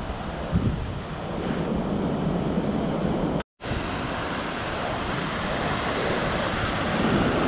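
Sea surf washing onto a beach, with wind buffeting the microphone. The sound cuts out for a moment about three and a half seconds in, then the surf returns brighter and steadier.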